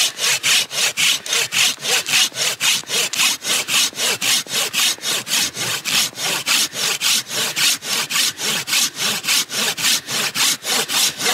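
Hand saw cutting through a hard tree burl in quick, even strokes, about four a second.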